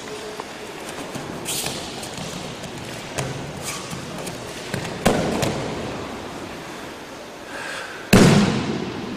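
Aikido partners landing on a tatami-style mat: a thud about five seconds in as the thrown partner goes down, and a louder, sharper slap on the mat just after eight seconds, with lighter footfalls and knocks before.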